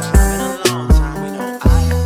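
Hip hop music with heavy deep bass drum hits and sustained bass notes under a melodic line, with no vocals.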